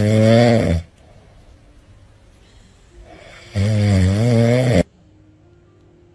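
A cat snoring loudly in its sleep: one snore ends just under a second in, and a second snore of a little over a second comes about three and a half seconds in, quieter in between.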